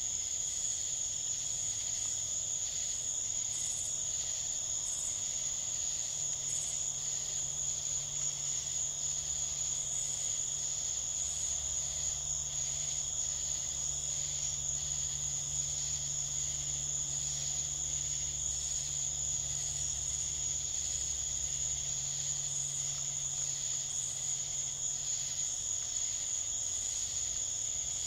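Night chorus of crickets: a steady high-pitched trill with faint rhythmic chirps pulsing over it.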